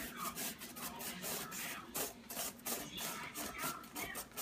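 Yellow squash being rubbed back and forth across the blades of a handheld plastic veggie strip slicer, a rasping scrape with each stroke, about three strokes a second.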